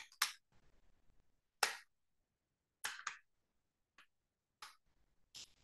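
Faint, scattered computer keyboard keystrokes: about eight sharp clicks, some in quick pairs, with near silence between them.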